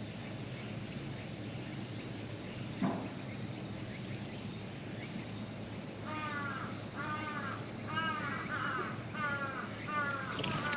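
A crow cawing in a quick even series of short calls, about eight caws, starting past the middle. A single short knock comes a little before, over a steady low hum.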